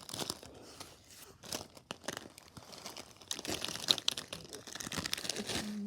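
Crinkling and rustling of gift-wrap packaging being handled: a dense run of small crackles that grows busier toward the end.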